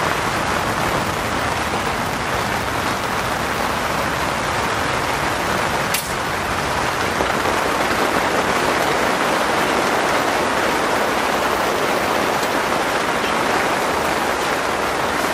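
Steady rain falling on a cotton tent, heard from inside as an even, dense patter. A single short click sounds about six seconds in.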